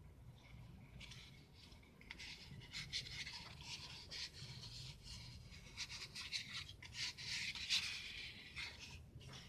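Plywood piston-pattern pieces handled and rubbed together by hand: faint scratchy rubbing with many short strokes and small knocks, busier in the second half.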